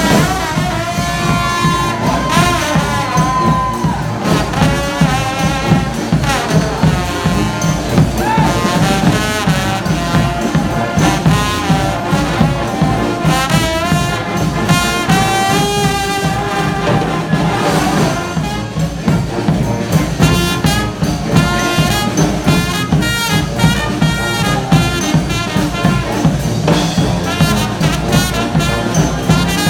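Brass street band playing: trumpets and trombones carry the melody over a steady drumbeat.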